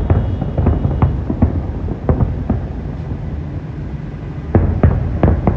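Fireworks going off: a rapid, irregular run of bangs over a steady low rumble, thickest at the start and again near the end.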